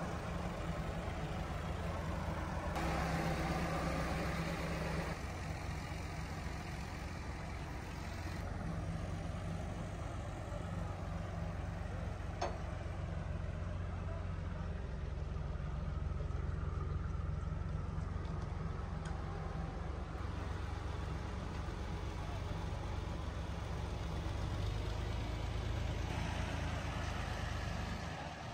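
Tractor engine running steadily with a low drone, its level and tone shifting a little every few seconds, and a single sharp click about twelve seconds in.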